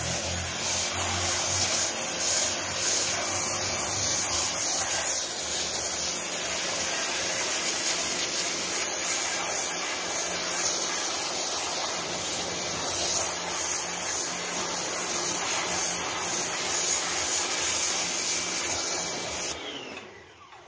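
Motorbike-wash pressure washer spraying a styrofoam hydroponic board: a steady, loud hiss of the water jet with the pump running, which cuts off suddenly about a second before the end.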